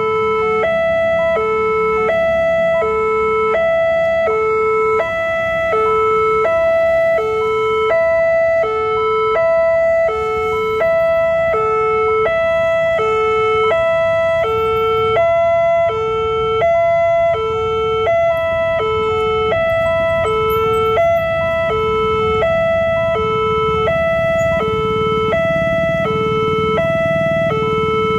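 Electronic railway level-crossing alarm (genta) sounding its repeating two-tone warning: a lower and a higher tone alternate, each held about half a second, over a steady high tone. It signals an approaching train as the crossing barrier closes.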